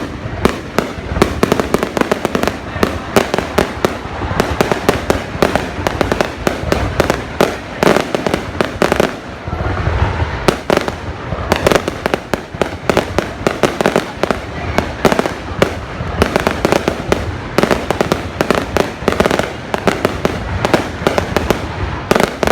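Aerial fireworks going off in a dense, continuous volley: rapid overlapping bangs and crackles, several a second, with no pause.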